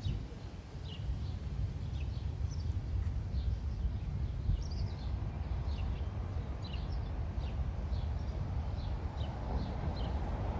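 Small birds chirping in short, quick calls, two or three a second, over a steady low rumble. A brief thump comes right at the start.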